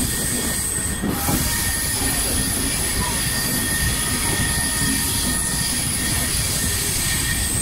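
Passenger train running through a station, heard from on board: a steady rumble of wheels on the track, with a thin, steady high-pitched whine over it.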